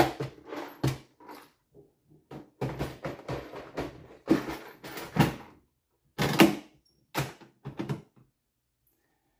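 Plastic clatter from a Hart stackable toolbox: a clear parts organizer's lid snapping shut, organizer trays sliding in the drawer unit and the front latch clicking, heard as a run of irregular knocks and clicks that stop about eight seconds in.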